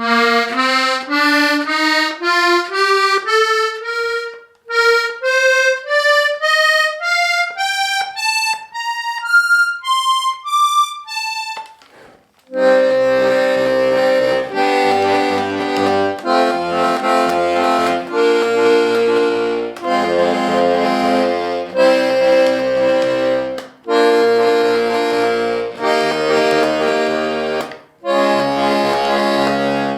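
Hohner Corona III diatonic button accordion, tuned BbEbAb, playing single notes one after another in a rising run. From about twelve seconds in it plays full chords over bass notes in a steady rhythm.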